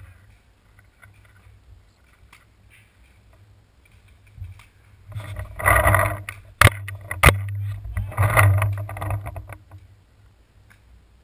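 Two sharp cracks of a paintball marker firing, about two-thirds of a second apart, with bursts of rustling and wind noise on the gun-mounted camera just before and after.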